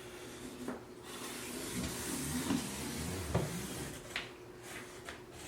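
Handling noises: a few light knocks and rubbing sounds, spread out and irregular, over a faint steady hum.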